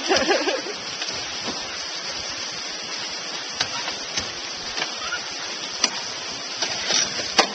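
Steady splashing hiss of a stream of water pouring off a pier into the water below, with a few sharp clicks in the second half. No engine is heard: the outboard motor has stalled.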